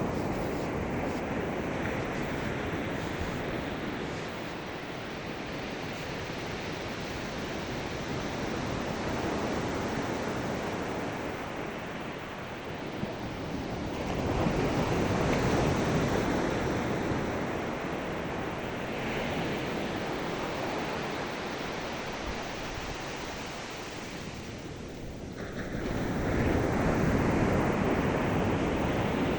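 Ocean surf: a continuous rush of waves breaking on a shore, swelling louder about halfway through and again near the end.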